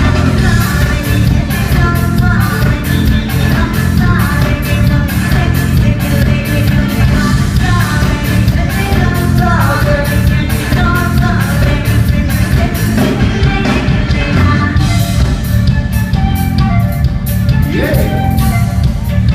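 A band playing rock music live, with singing over drums, bass and guitar at a steady beat.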